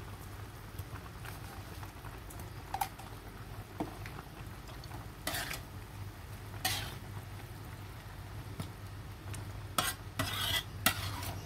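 Metal spatula stirring a thick coconut-milk curry in a metal wok, with scattered short scrapes and clinks against the pan, coming more often near the end.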